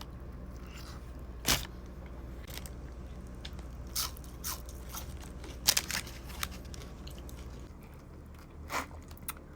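Close-up eating sounds: a person biting into and chewing a breakfast burger, with short crunches and mouth clicks scattered through, the loudest about six seconds in.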